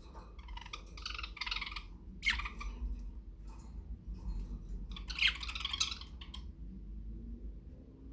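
Budgerigar chattering and warbling in several short bursts, with a pause in between.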